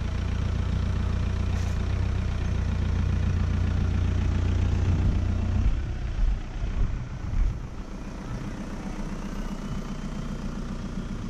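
An engine running steadily with a low hum, loud for about the first six seconds. Then come a few knocks, and it carries on quieter.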